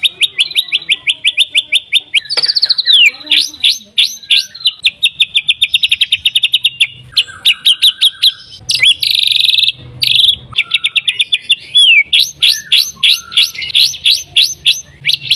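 White-rumped shama singing: long runs of rapid repeated chattering notes, about eight a second, broken by a few falling whistled glides and a harsh, buzzy stretch near the middle.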